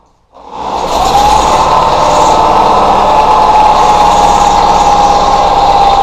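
1979 Briggs & Stratton engine on a motorized bicycle starting up for its first run after being fitted. It catches about a third of a second in, builds up within a second and then runs steadily.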